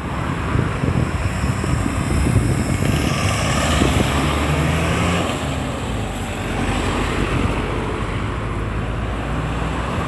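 Road traffic passing, engines running; the noise swells to its loudest about four seconds in and then eases.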